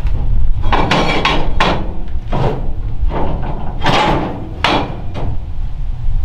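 Cast-iron parts of an old Elmira wood cookstove's cooktop being handled and set in place: a run of knocks and clanks, about seven in the first five seconds, some ringing briefly.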